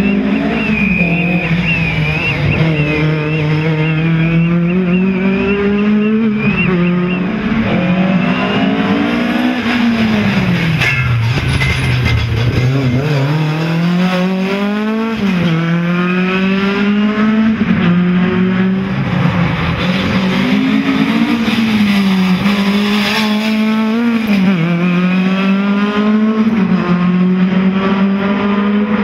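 Ford Escort BDA rally car's Cosworth BDA twin-cam four-cylinder engine driven hard: its pitch climbs under acceleration and drops back again and again as the driver shifts gears and lifts off for corners. A high wavering squeal runs over the first seven seconds or so.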